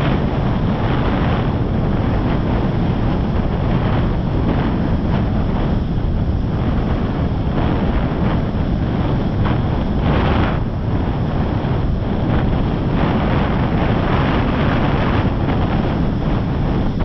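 Wind buffeting the microphone of a camera carried while kite foiling: a loud, steady rush heaviest in the low end, with brief hissier surges now and then, the clearest about ten seconds in.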